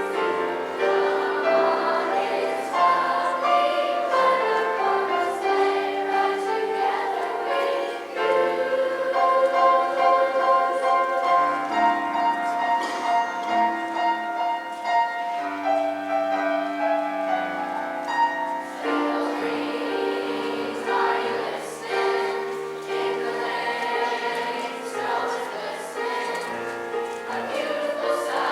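School choir singing in harmony with accompaniment, the voices moving between held chords.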